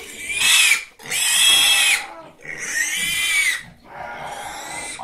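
A pig squealing four times, each squeal about half a second to a second long and rising then falling in pitch.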